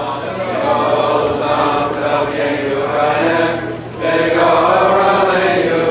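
Voices chanting together in a sustained line, with a short break about four seconds in.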